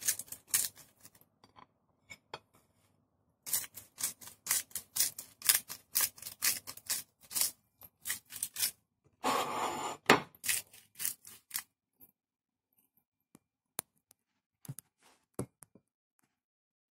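Seasoning being shaken and sprinkled over raw lamb: bursts of crisp rattling clicks and scrapes, with a longer scrape about nine seconds in. The clicks thin out to a few scattered ones in the last five seconds.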